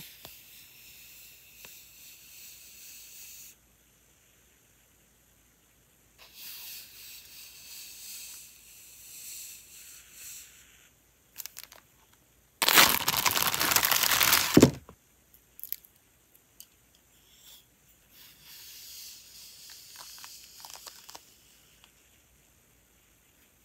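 Paper washi tape rolls being handled and unrolled, giving soft papery rustling and crinkling with a few small clicks. About 13 seconds in there is a loud ripping rasp lasting about two seconds.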